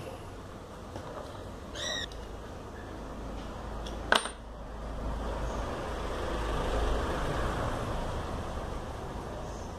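A short ringing clink about two seconds in and a sharp knock about four seconds in, from tools and parts handled on a wooden workbench. A low rumbling noise swells and fades in the second half.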